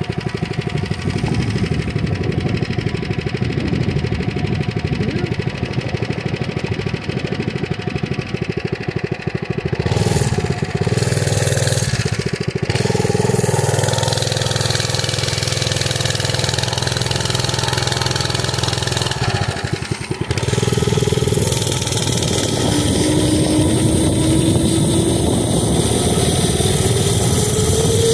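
Mini bike's small engine running under way, its note shifting with the throttle, with stretches of wind noise on the microphone. Toward the end the engine note climbs steadily as the bike speeds up.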